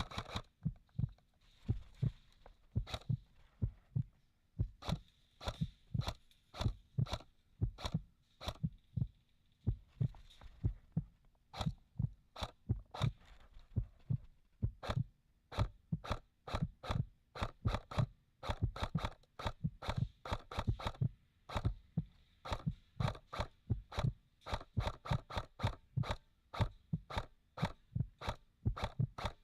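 A steady run of irregular thumps with sharp clicks, about two or three a second.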